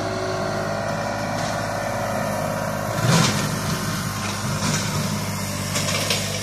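Compact tractor engine running steadily while it pulls a rotary brush-hog cutter through tall weeds. A louder clatter comes about three seconds in, with a few shorter knocks after it.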